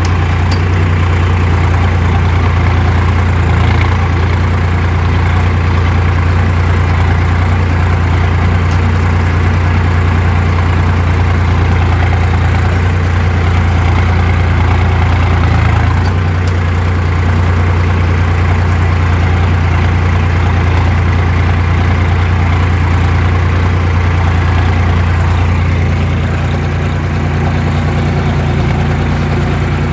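VST Shakti 9045 DI Viraaj XT tractor's diesel engine running steadily under load, heard close from the driver's seat, as it pulls a tine cultivator through the field. The engine note eases slightly near the end.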